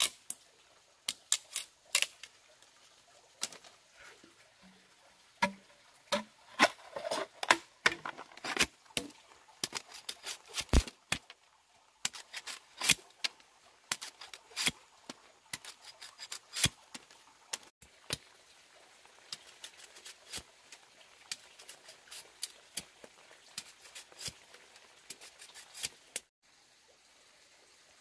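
Machete knife chopping and splitting green bamboo into thin strips: a long run of sharp, irregular cracks and taps, stopping about two seconds before the end.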